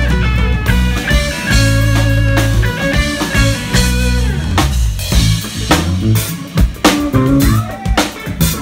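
Live rock band playing: electric guitar lead lines with bending, sliding notes over sustained bass notes and a drum kit. The drum hits get busier and sharper about halfway through.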